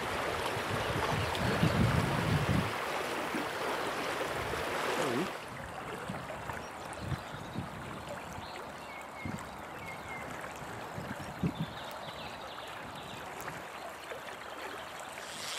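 River water running, a steady rushing hiss, louder for the first five seconds or so and then quieter.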